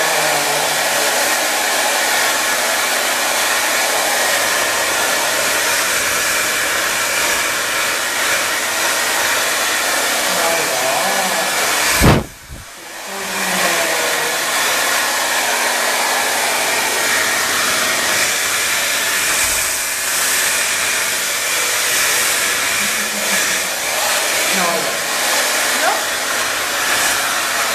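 Hair dryer blowing steadily on a freshly bathed Persian kitten's long fur, dropping away briefly about twelve seconds in before it comes back.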